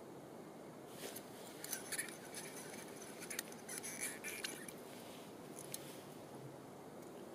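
Small plastic clicks, ticks and scraping from hands handling small ice-fishing rods and their line, in a burst from about a second in until a little past halfway, with a couple more ticks later, over a faint steady hiss.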